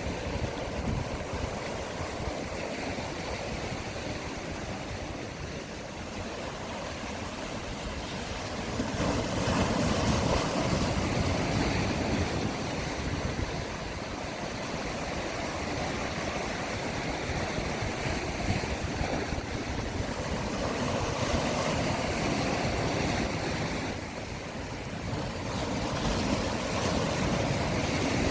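Sea waves surging and washing, swelling louder several times, with wind noise on the microphone.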